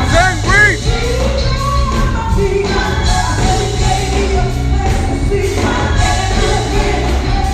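Gospel vocal group singing over band accompaniment, with a steady bass underneath; a lead voice makes quick up-and-down runs in the first second.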